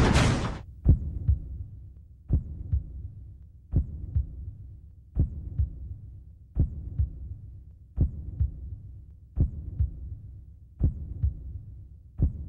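Heartbeat sound effect: slow, steady pairs of low thumps, lub-dub, about every second and a half, nine beats in all. The tail of a loud burst of music dies away in the first half-second.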